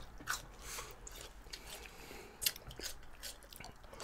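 Close-up eating sounds of someone chewing spicy instant noodles: scattered short wet clicks of the mouth, the loudest about two and a half seconds in.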